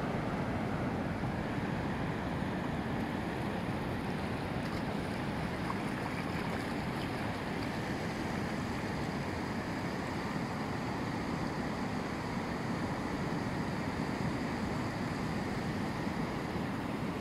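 Steady rush of surf waves breaking and washing onto a beach.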